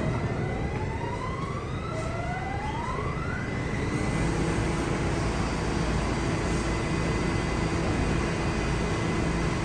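New York City subway train pulling away, its electric traction motors giving rising whines for the first few seconds. After that comes a steady running rumble as the train gathers speed.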